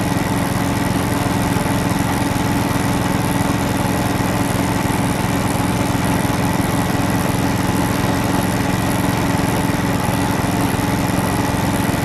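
Engine of a homemade hydraulic well-drilling rig running steadily under load while the drill bores down, with a constant hum and a fast, even low throb.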